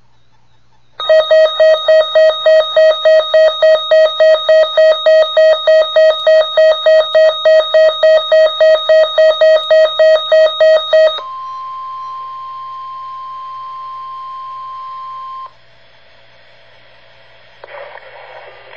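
Weather alert radio alarm beeping harshly about three times a second for roughly ten seconds, then a single steady high alert tone for about four seconds, the National Weather Service warning alarm tone that flags a tornado watch. After it comes a faint radio hiss.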